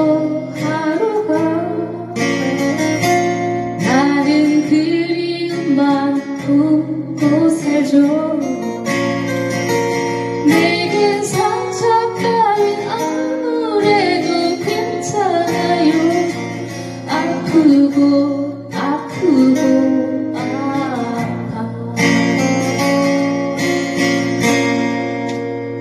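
Two acoustic guitars strummed together, accompanying a woman singing a slow ballad melody.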